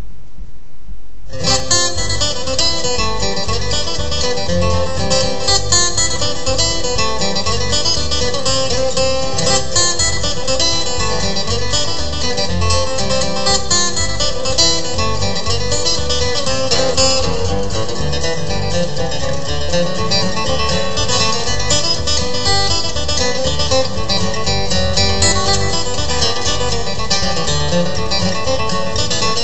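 Acoustic guitar playing a bluegrass reel from a studio recording, starting about a second in and running on steadily.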